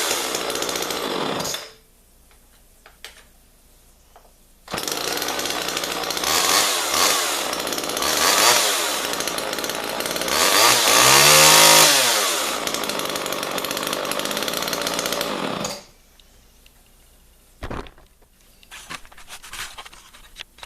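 1979 Homelite XL two-stroke chainsaw running, stopping shortly after the start, then running again about three seconds later and being revved up and down several times, highest about eleven seconds in, before it cuts off; faint clicks and handling noise follow.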